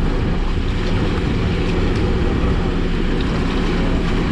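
Boat engine running steadily: an even, loud low rumble with a constant hum.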